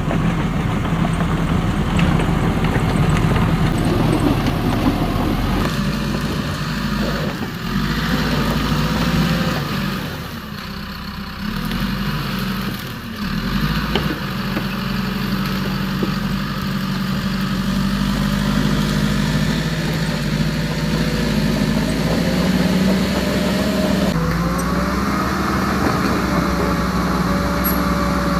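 Remote-control Huina 1551 long-arm excavator working: a steady, engine-like mechanical drone, with motor whines that rise and fall near the end.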